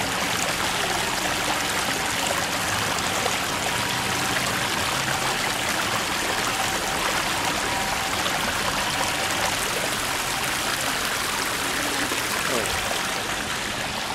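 Shallow stream water running and trickling over stones in a riverbed: a steady, unbroken rush of flowing water.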